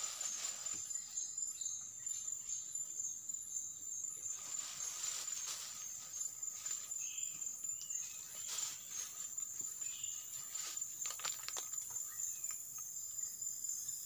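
Steady, high-pitched drone of forest insects, with a few short clicks and rustles around the middle.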